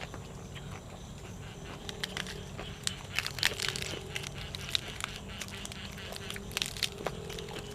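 A person chewing and crunching food, with sharp crackly clicks that cluster from about three to seven seconds in, over a steady low hum.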